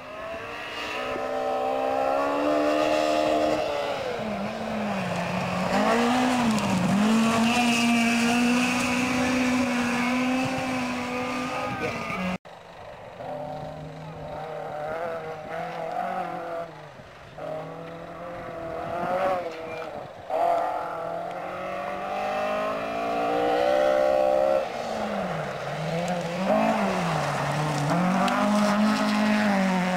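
Two-wheel-drive rally car engines driven hard. The pitch climbs, drops and wavers repeatedly through gear changes and lifts off the throttle. Two separate passes are split by an abrupt break about twelve seconds in.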